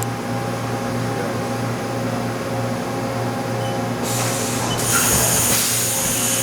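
Haas VF-4SS vertical machining center running: a steady mechanical hum with thin steady tones, and a high hiss comes in about four seconds in.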